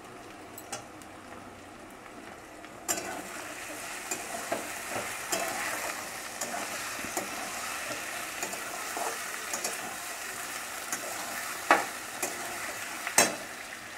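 Potatoes, onions and freshly added tomatoes sizzling in oil in a kadai while a flat steel spatula stirs and scrapes them against the pan. The frying gets louder about three seconds in, once the stirring starts. Two sharp knocks of the spatula on the pan come near the end.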